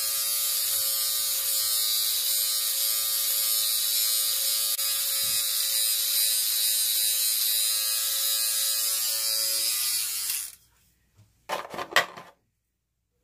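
Electric beard trimmer buzzing steadily as it trims the moustache and the stubble under the lower lip, then stopping abruptly about ten and a half seconds in. A few short knocks follow soon after.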